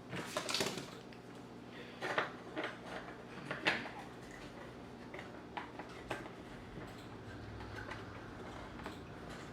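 Scattered light clicks and taps of craft-kit pieces being handled and pressed together while a stand is assembled, a few sharper knocks among them.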